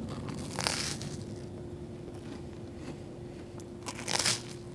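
Two bites into a slice of buttered toast with a lightly crisp outer crust, one a little under a second in and another near the end.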